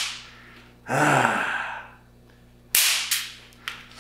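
Electric fly-swatter racket snapping as it shocks a man's finger. The first snap is fading as the sound begins, then a pained, voiced exhale about a second in. A second sharp snap comes near three seconds, followed by a few faint clicks.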